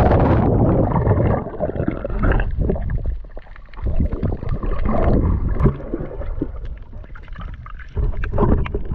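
Muffled rushing and bubbling of sea water heard with the microphone submerged, loudest in the first second or so after entering the water, then a low, uneven underwater rumble.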